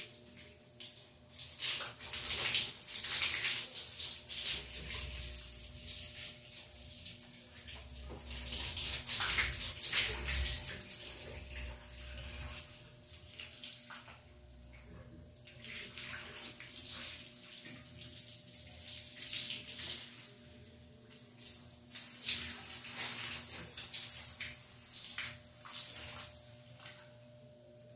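Water spraying from a garden hose onto a metal-framed glass door and tiled wall, a loud hiss and splatter that comes in three long spells with short breaks, stopping near the end.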